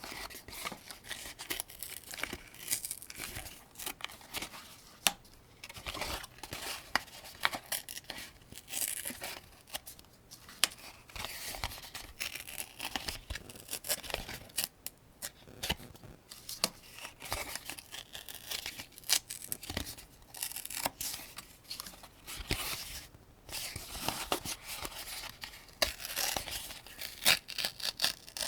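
Cartridges being pressed one by one into a 75-round AK-47 drum magazine: a quick, irregular run of small metallic clicks and scrapes.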